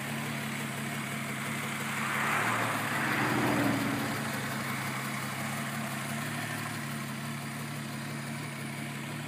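Ford 200 cubic-inch inline-six engine idling steadily. A brief louder rushing swell comes up about two to four seconds in.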